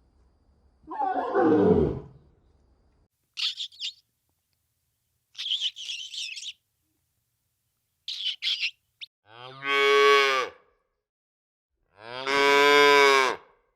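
Cow mooing twice, each a long call of about a second and a half. Before them come a short falling roar-like call and a few scattered high-pitched bird chirps.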